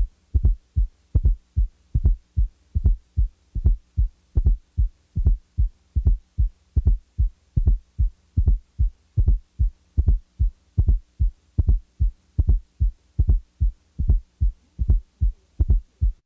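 Heart sounds demonstrating a fourth heart sound (S4, atrial gallop): a regular run of short, low thuds, about three a second, over a faint steady hum. During the sequence the S4 is taken out of the cycle and then put back, adding a soft extra beat just before the first heart sound.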